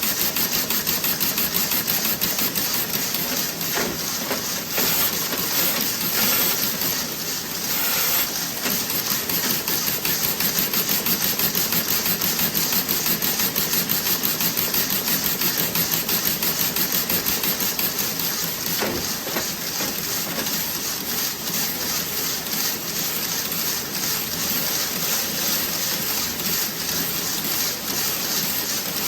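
Toe-sock knitting machine running, with a fast, steady mechanical clatter.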